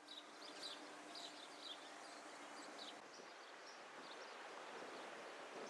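Faint outdoor ambience: a low steady hiss with small birds chirping repeatedly throughout, and a faint steady hum in the first half.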